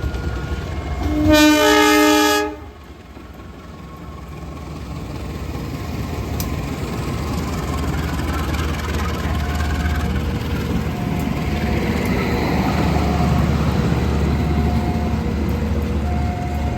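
Train locomotive horn sounding one loud blast of about a second, then the train's rumble building as it approaches and runs past.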